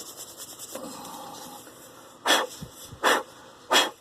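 Three short, sharp puffs of breath, about two-thirds of a second apart in the second half, blowing sanding dust off a freshly sanded wooden spoon. They follow a faint stretch of light rubbing.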